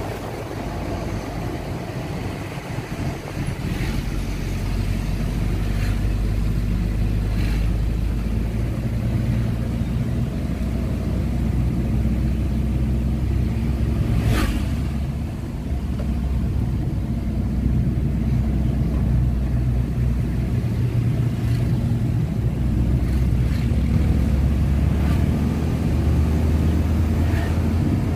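Engine and road noise inside the cab of a moving vehicle: the engine hums steadily and grows louder over the first few seconds. About halfway through there is one sharp click, and the engine eases off briefly before pulling again.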